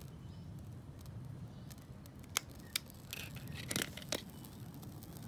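A few sharp clicks and light taps about two and a half to four seconds in, over a low steady background rumble.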